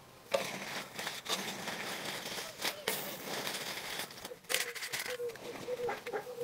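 Irregular crackling and rustling with many small clicks from a crayfish boil, as boiled crayfish and corn are scooped out and handled. It starts abruptly just after the beginning.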